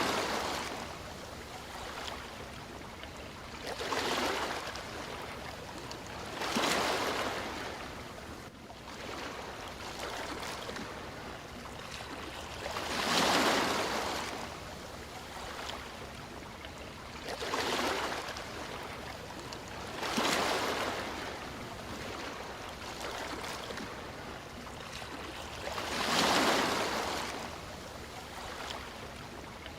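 Sea waves breaking. The surf swells up and dies away seven or so times, at uneven gaps of a few seconds, over a steady wash of water.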